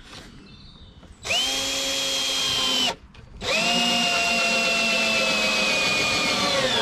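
A DeWalt cordless drill runs in two bursts against a wooden panel: a short one of about a second and a half, then a longer one of about three and a half seconds. In the second burst the motor whine sinks slightly in pitch as the bit works into the wood.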